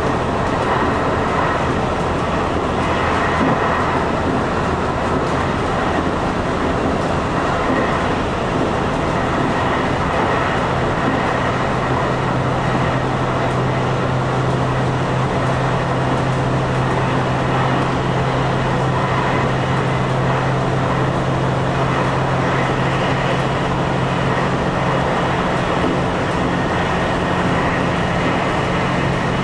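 Diesel limited-express railcar running at speed through a tunnel: a steady rumble of wheels on rail mixed with the diesel engine's hum, which grows stronger about a third of the way in.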